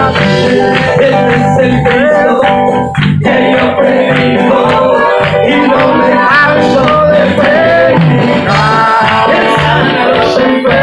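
Live worship music from a church band, loud and steady: electric keyboard and guitar over a steady beat, with singing.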